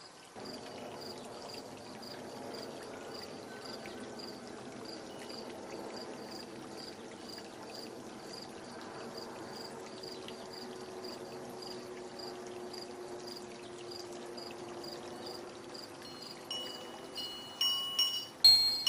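Chime tones ringing, in a loud flurry of strikes near the end, over a steady low hum. A faint high chirp repeats about twice a second throughout.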